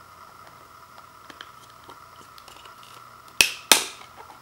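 Two sharp plastic clicks about a third of a second apart, about three and a half seconds in, as a CD is pulled free of the press-to-release hub of a digipak's clear plastic tray, after faint ticks of handling.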